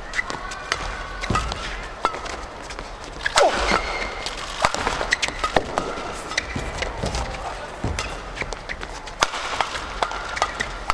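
Badminton doubles rally: sharp, irregular cracks of rackets striking the shuttlecock in a fast exchange, with court shoes squeaking on the mat as players lunge.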